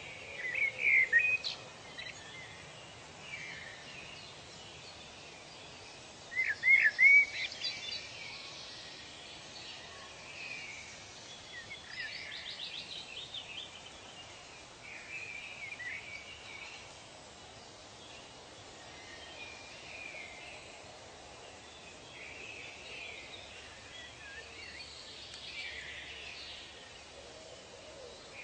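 Forest ambience with several birds calling: short chirping and trilling notes over a steady hiss, loudest in two bursts of rapid calls, about a second in and again about six seconds in.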